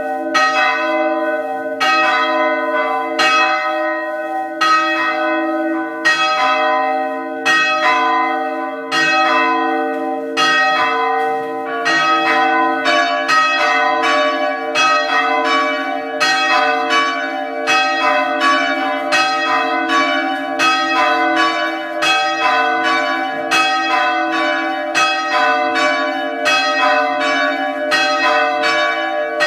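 Two swinging church bells rung by hand in the tower, striking in turn about one to two times a second. Each stroke rings on and hums into the next.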